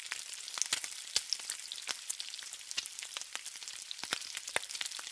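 Food sizzling on a hot flat-top griddle: a steady hiss with frequent sharp pops and crackles.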